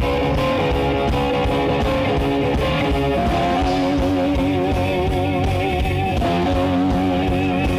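Live blues-rock band playing an instrumental break: an electric guitar lead over bass and drums, with long held notes that waver in pitch from about halfway through.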